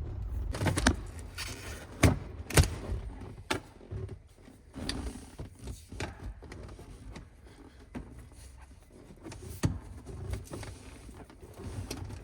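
Metal hand tools clinking and knocking on a transmission as a large nut at the gear lever is worked loose, with a few sharp clanks, the loudest about two and a half seconds in. The nut comes off easily: it was not very tight.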